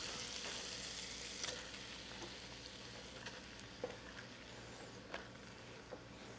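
Sausage and chopped vegetables sizzling in a hot nonstick skillet as the vegetables are pushed in from a cutting board, the sizzle slowly dying down. A few light knocks as pieces drop into the pan.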